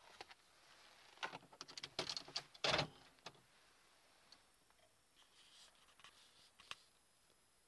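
Quiet parked car cabin with a run of small clicks and rustles of handling, the loudest a sharp knock about three seconds in, and a single click near the end; no engine running.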